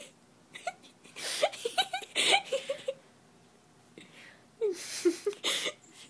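A person laughing under their breath: breathy bursts with short snickering voice sounds, in two spells, the second about four and a half seconds in.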